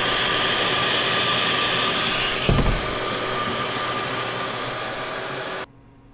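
Shop vacuum running steadily, drawing air through the extraction hose attached to an orbital sander, with a single dull thump about two and a half seconds in. The noise cuts off suddenly near the end.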